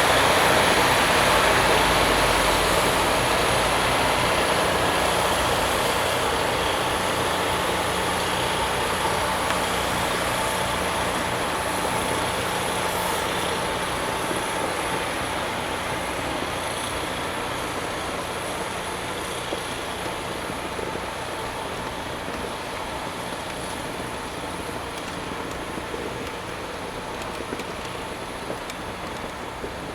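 Rail grinding machine working along the track and moving away: the steady dense grinding noise and low engine hum fade gradually throughout.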